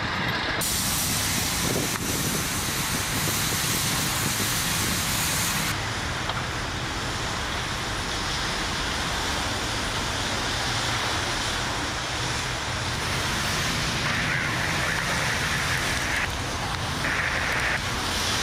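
Wildfire burning through a wooden building and trees: a steady rushing roar of flames. Its character shifts abruptly a few times.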